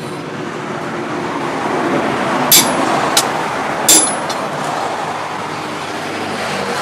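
Two hammer blows on the anvil, a little over a second apart, the second ringing briefly, over a steady mechanical noise.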